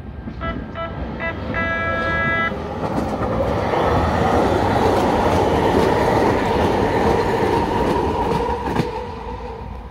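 Siemens S700 light-rail train sounding its horn in a few short toots and then a longer blast, then passing close by with loud, rising wheel-on-rail noise and a steady whine that ease off near the end.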